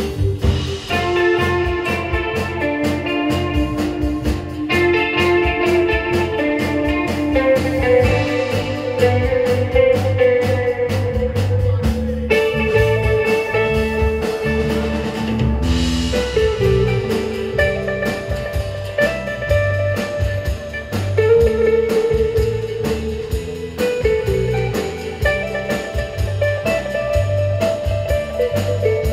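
Live rautalanka instrumental by a band: a hollow-body electric guitar played through a valve amp carries the melody over a drum kit and a steady low rhythm line.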